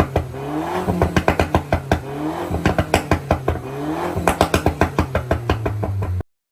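Mercedes SLK200's 1.8-litre turbocharged four-cylinder blipped three times, the engine note rising each time, with rapid crackling pops and bangs from the exhaust as the revs drop. The crackle comes from an ECU tune with a pops-and-bangs map. The sound cuts off suddenly near the end.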